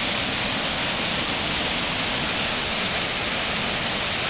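Waterfall: falling water rushing steadily, an even hiss and roar with no change in level.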